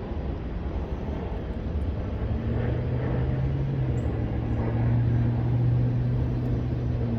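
Low outdoor rumble, joined about two and a half seconds in by the steady low hum of a distant engine.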